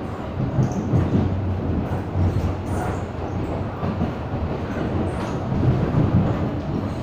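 Cabin noise of an MTR M-Train electric multiple unit running along the track: a steady low rumble from the wheels and running gear that swells louder a few times.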